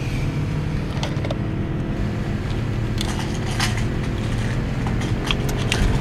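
A car driving, heard from inside the cabin: a steady low engine and road rumble. A few faint clicks and rustles come in the second half.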